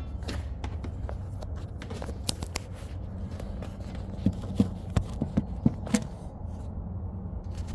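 Scattered sharp clicks and knocks over a low steady hum, with a quick cluster of louder knocks about halfway through.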